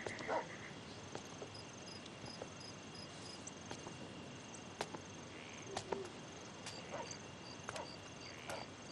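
Faint night ambience: crickets chirping in runs of short, evenly spaced chirps over a steady high trill. A dog barks once right at the start, and a few faint clicks sound later on.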